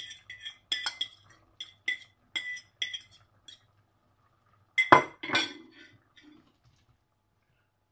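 Light ringing clinks of a plate being tapped to shake its leftover chicken juices into a stainless steel pressure cooker, about two a second, stopping a little past three seconds in. Near five seconds in comes a louder clatter of dishware as the plate is put down.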